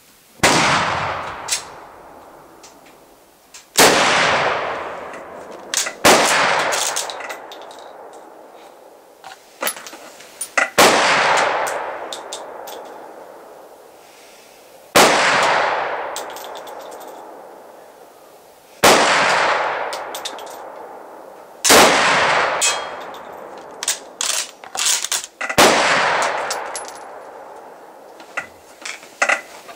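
Mosin-Nagant M91/30 bolt-action rifle firing 7.62x54R surplus rounds: eight shots spaced two to four seconds apart, each a sharp crack trailing off in a long echo lasting a few seconds. Short metallic clacks, the bolt being worked, fall between some of the shots.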